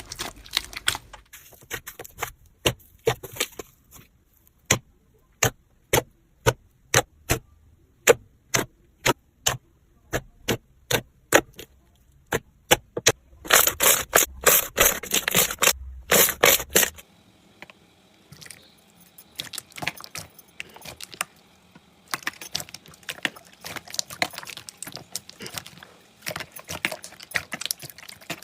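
Slime being pressed and stretched by hand: a run of sharp separate pops, about two a second, then a burst of dense crackling; partway through, the sound changes to a quieter, steadier crackle.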